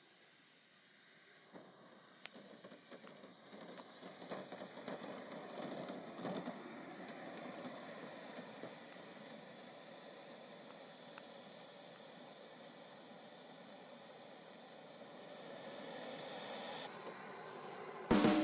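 Twin model jet turbines of an RC Su-37 running at low power as the model taxis on the ground after landing: a high, steady whine over a rush of exhaust. The sound is loudest about four seconds in, and the whine climbs in pitch shortly before the end.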